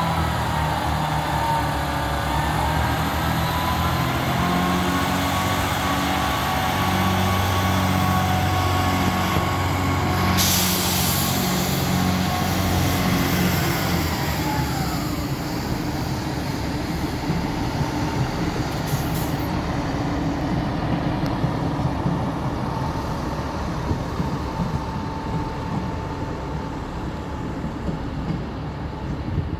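Class 158 diesel multiple unit moving through the station, its underfloor diesel engines running with a steady whine above them. There is a sharp burst of hissing about ten seconds in. The engine note drops away after about fourteen seconds, leaving a steadier rumble as the train moves off.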